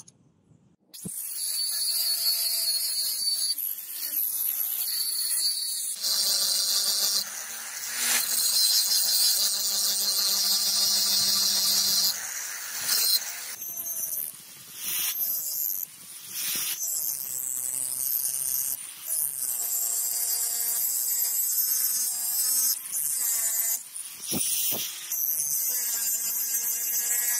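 Angle grinder with an abrasive disc grinding the edge of a spring-steel knife blank. It starts about a second in, with a high-pitched hiss over the motor whine, and the pitch wavers as the disc bears on the steel. There are a few brief dips where the disc lifts off.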